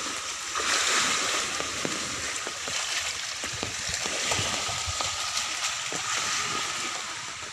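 Floodwater rushing and flowing across the ground: a steady watery rush with many small splashes.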